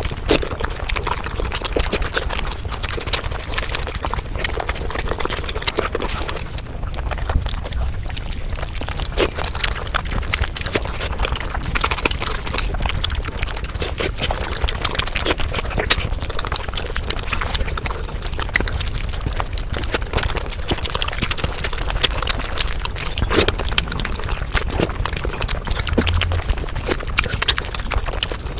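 Close-miked eating sounds played back at about five times normal speed: a fast, dense run of chewing clicks and wet, slurping mouth noises.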